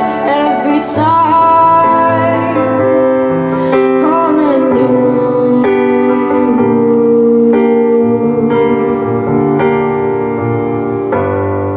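Recorded music played back through a hi-fi system with a Dyna PAS tube preamp: a female voice sings with vibrato over held keyboard chords and bass. The voice drops out a little under halfway, and the keyboard chords carry on, changing about once a second.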